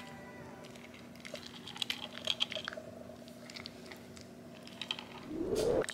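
A French bulldog puppy eating dry kibble from a steel bowl: scattered light clicks and rattles of kibble against the metal. Near the end comes a short, louder rumble.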